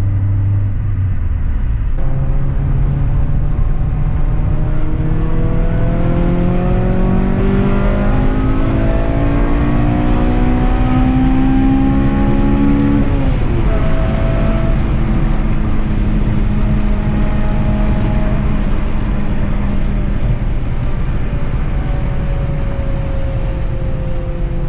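Honda Integra Type R DC2's 1.8-litre DOHC VTEC four-cylinder engine under acceleration, heard from inside the cabin. The engine note climbs steadily for about ten seconds, drops sharply about thirteen seconds in, then holds and slowly falls as the car runs on.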